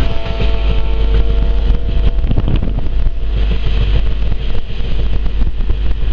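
A vehicle's motor running with heavy wind rumble on the microphone; a steady droning tone sounds through the first two seconds or so.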